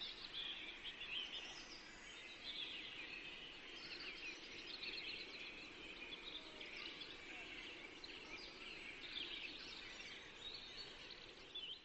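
Small birds chirping continuously, a dense chatter of many short, high chirps, faint in the background.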